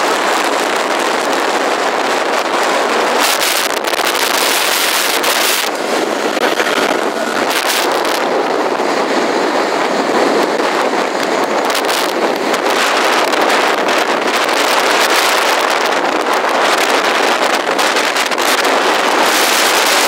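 Motorboat running steadily at speed. The sound is a constant rush of wind on the microphone and water along the hull, with the engine underneath.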